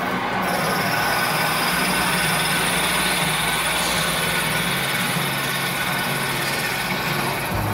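Multi-spindle machining station running, its angled tool heads cutting the tappet seats in a magnesium-alloy AS41 air-cooled VW-type crankcase: a steady machine hum under an even rush of cutting noise.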